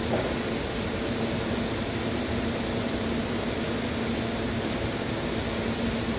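Steady machine hum with an even hiss, like a fan or air handler running, with one faint knock right at the start.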